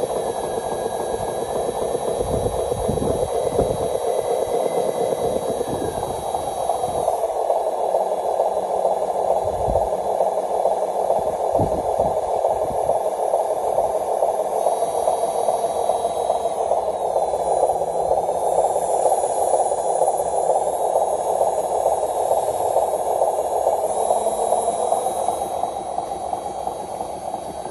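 Electric drive motor and gearbox of a radio-controlled Hino 500 tractor-trailer whirring steadily as it drives over dirt, its pitch shifting slightly with speed, with a few low thumps from the wheels on bumps.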